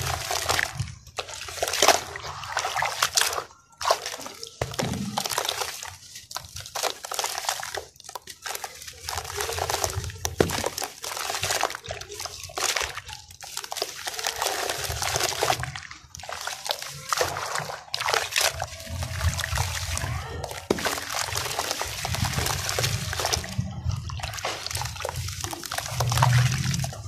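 Wet sand lumps being squeezed and crumbled by hand in a tub of water: irregular sloshing and splashing as pieces break off and drop back into the water.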